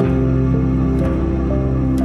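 Background music: sustained ambient synth chords over a steady bass line.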